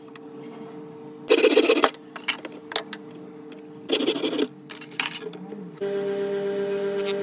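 Workshop sounds across quick cuts: two short bursts of rough noise and a few sharp taps. About six seconds in, an electric disc sander starts a steady motor hum.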